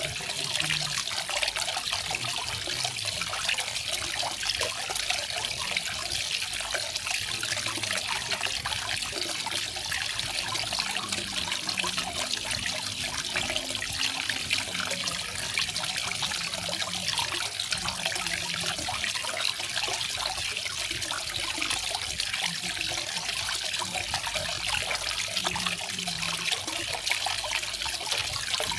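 Small garden waterfall: falling water splashing and trickling steadily, mostly a high hiss.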